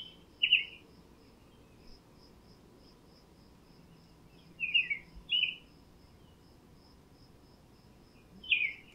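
A songbird sings short, bright phrases: once at the start, a cluster of two about five seconds in, and again near the end. Throughout, an insect chirps faintly and evenly at about three pulses a second.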